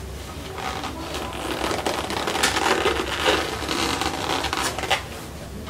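Hands rubbing and squeezing a foam takeout clamshell box: a steady scratchy foam crinkling with small clicks. It dies away about five seconds in.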